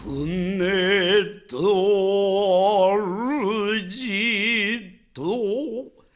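A solo voice singing long, held notes with a wide vibrato, in a few phrases separated by short breaths, dying away near the end.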